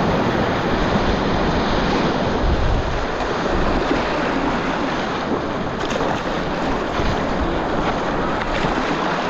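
Loud, steady rush of whitewater in a river rapid, heard close from a kayak, with a few faint paddle knocks and splashes in the second half.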